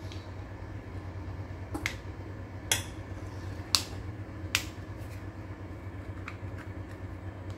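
Sharp clicks and taps of a metal spoon against a plastic rice-ball mould as fried rice is packed in, and of the mould's clear plastic lid being fitted and snapped shut, about half a dozen in all. A steady low hum runs underneath.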